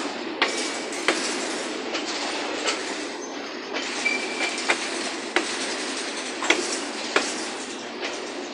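Freight train of hopper cars rolling past: a steady rolling noise of steel wheels on rail, with sharp clacks as the wheel sets cross rail joints, often in pairs, and a brief wheel squeal about four seconds in.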